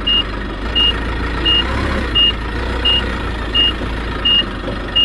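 Vehicle reversing alarm beeping evenly, about three beeps every two seconds, over a steady low engine rumble.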